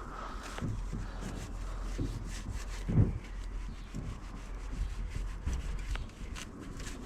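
Soft-bristled brush scrubbing a wet, soap-sprayed mountain bike frame in repeated irregular strokes, working the dirt loose, with one knock about three seconds in.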